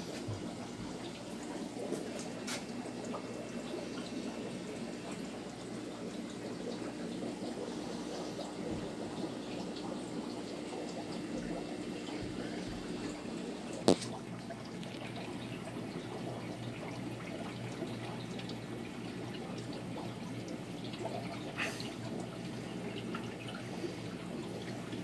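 Aquarium water running steadily, trickling and splashing from the tanks' filtration, over a steady low hum. A single sharp click comes a little past halfway.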